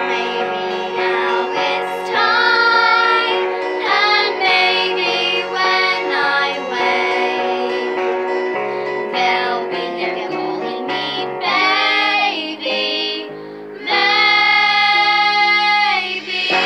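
Young girls singing together over an instrumental accompaniment, the voices bending from note to note, with a long held note near the end.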